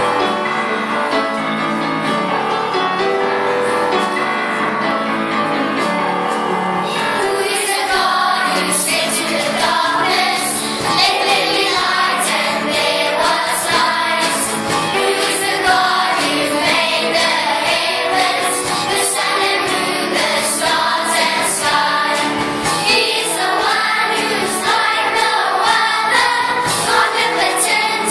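A children's choir singing a worship song over instrumental backing. The backing plays alone for about the first seven seconds before the voices come in.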